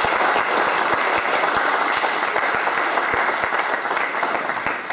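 Audience applauding: dense, steady clapping from a crowd.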